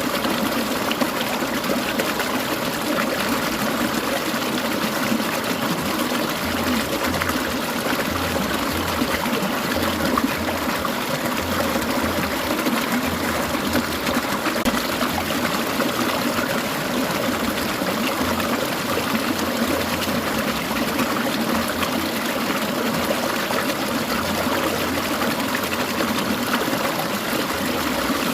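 Clear mountain stream water trickling and babbling over rocks, steady and continuous.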